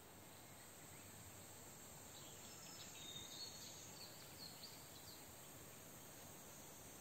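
Faint outdoor ambience: a steady high insect buzz, with a few faint short chirps between about two and five seconds in.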